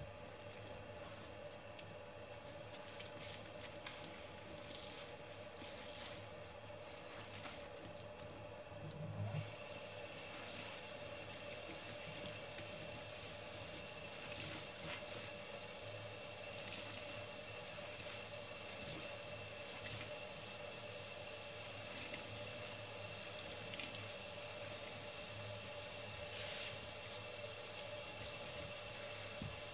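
Tap water running into a stainless steel sink over soapy sponges, with wet squishing and crackling as gloved hands squeeze and rinse a gold glitter scouring sponge. About nine seconds in, the water gets louder and turns into a steady hiss.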